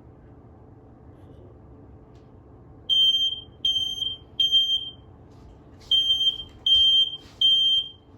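Household smoke alarm going off in a test, sounding its high-pitched beep in the temporal-three pattern: three beeps, a pause, then three more. The alarm starts about three seconds in.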